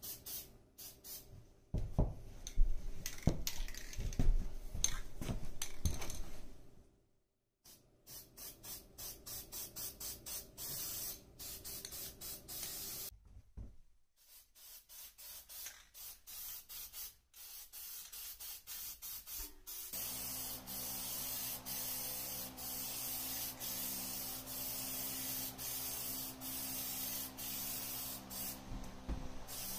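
An aerosol can of Rust-Oleum high-temperature BBQ black spray paint hisses as it is sprayed, first in many short spurts and then, from about two-thirds of the way in, as a longer steady spray. A few heavy thumps sound in the first several seconds.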